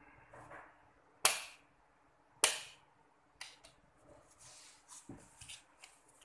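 Two sharp snaps a little over a second apart as the insulation tester's test probe tips are brought together, followed by softer clicks and rustling as the test leads are handled.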